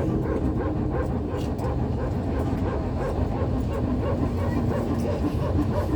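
Airliner cabin noise: a steady low rumble with a tone that slowly sinks in pitch, typical of the jet engines winding down after arrival, and a quick repeating patter over it.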